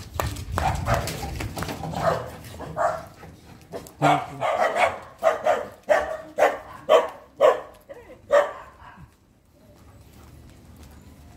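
A dog barking repeatedly, about two barks a second, then stopping about nine seconds in.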